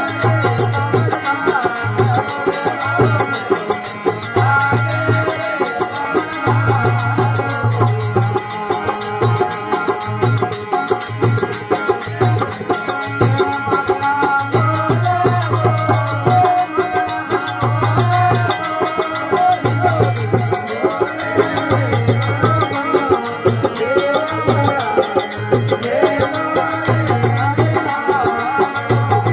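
Rajasthani folk devotional bhajan music: a melody over a steady percussion beat.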